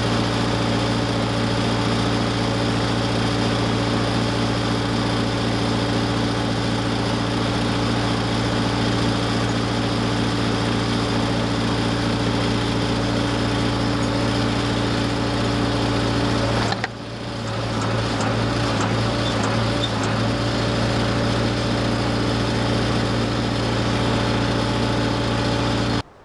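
Case 580CK backhoe engine running steadily. About two-thirds of the way through it briefly drops and stutters, then carries on until it cuts off suddenly at the very end.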